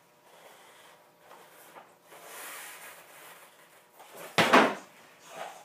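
Quiet scuffs and creaks of a trials motorcycle being balanced in place on a concrete floor with its engine off, then one loud, short thump about four and a half seconds in as the bike or a foot comes down.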